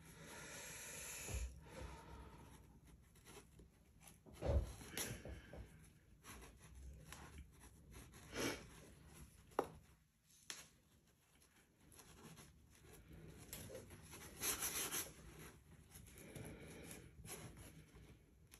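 Cardboard shipping box being unpacked by hand: faint rustling and scraping of cardboard and packing, with a few short knocks, the loudest about four and a half seconds in.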